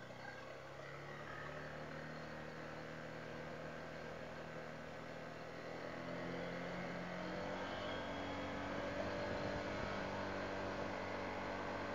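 Honda ADV160 scooter's single-cylinder engine running steadily under way, with wind and road noise, getting a little louder about halfway through.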